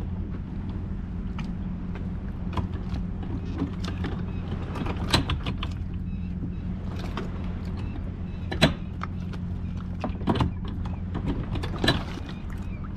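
Steady low machine hum from the motorboat, with a few sharp knocks and clicks as the inflatable tender's line and its fittings are handled at the stern, the loudest a little past the middle.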